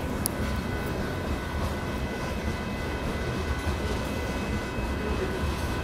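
Loaded gravel hopper cars of a Union Pacific freight train rolling past, a steady rumble of wheels on rails with a few faint steady high tones above it.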